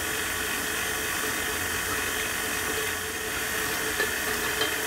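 KitchenAid tilt-head stand mixer running steadily at low speed, its motor humming with a faint whine as the paddle beats butter and sugar into a paste.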